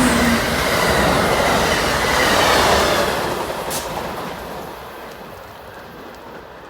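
Passenger train passing at speed: a loud rush of wheel and rail noise that fades away after about three seconds as the train moves off, with one sharp click along the way.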